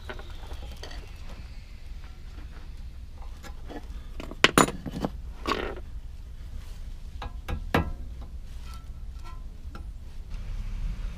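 Metal hand tools clinking and knocking against metal parts, with a few loud sharp clanks in the middle, as the axle nut on a car's front hub is worked loose.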